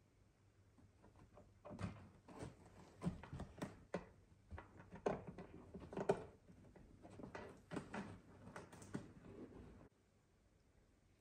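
A run of soft, irregular knocks and thumps, several a second, that stops abruptly near the end.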